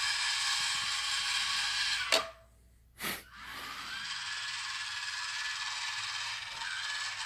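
Electric drive motor and gears of a 1/12-scale Dickie Fendt Vario 926 radio-controlled toy tractor, run on a 12-volt battery, whirring with a high whine. The whirring stops with a sharp click just after two seconds, a short knock follows about a second later, and the motor runs again from about three and a half seconds on.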